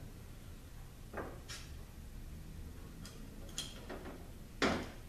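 A few light clicks and clinks of small parts being handled as the retaining plate is lifted off a 42RLE transmission valve body and its valves are taken out, the loudest about four and a half seconds in.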